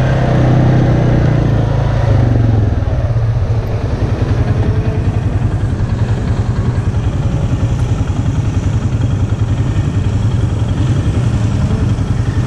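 ATV engine running: steady for the first few seconds, then settling into an idle with a quick, regular pulse from about four seconds in.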